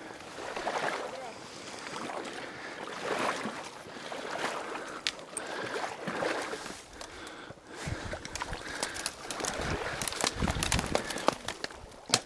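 Someone wading through a marsh and pushing through dry reeds and brush: water sloshing around the legs and dry stems rustling and swishing against the body, with heavier splashing and a run of sharp snaps near the end.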